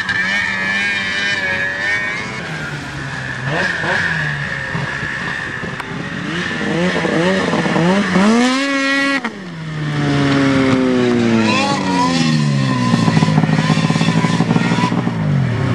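A small off-road vehicle engine being revved hard. Its pitch climbs to a peak about nine seconds in and breaks off sharply, then the engine comes back and slides down in pitch before holding steady near the end.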